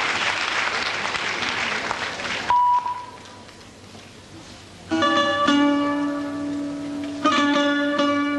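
Audience applauding, then a short steady beep-like tone about two and a half seconds in and a couple of seconds of quiet. Near five seconds in, oriental-style plucked-string music starts with strongly struck notes, the accompaniment for a rhythmic gymnastics ribbon routine.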